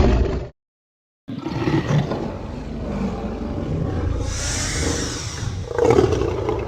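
Godzilla-style kaiju roar sound effects. The end of one roar cuts off about half a second in; after a short silence a long, rough roar starts and is drawn out, with a hissing stretch in the middle.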